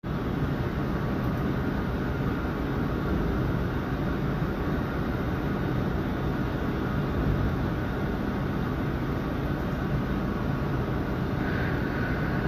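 Steady low rumble with a hiss of noise and no distinct events; a faint high steady tone comes in near the end.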